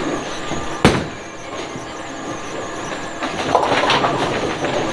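Bowling ball dropping onto the wooden lane with a sharp thud about a second in, then rolling down the lane with a steady rumble. Near the end comes a clatter as it reaches the pins.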